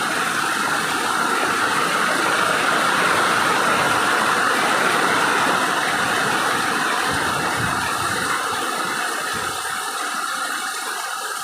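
Storm rain and wind, a loud steady rushing hiss that eases a little near the end.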